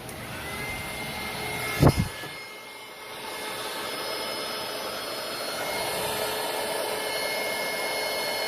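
Small heat gun running with a steady whir and faint whine, shrinking heat-shrink tubing over freshly soldered coil-pigtail wires. A brief double knock about two seconds in.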